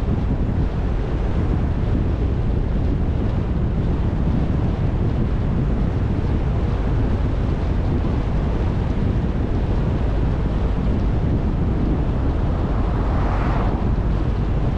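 Wind buffeting the microphone over the steady rumble of a vehicle driving along a road. Near the end a brief whoosh swells up and fades.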